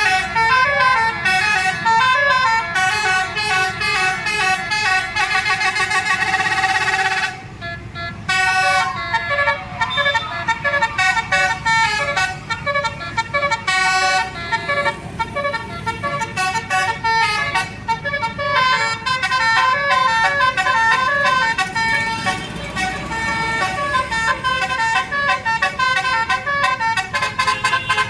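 Tour bus 'telolet basuri' multi-trumpet air horn playing fast melodic tunes, a string of short notes jumping in pitch, over a bus engine's low rumble. The tune breaks off briefly about seven seconds in, then carries on.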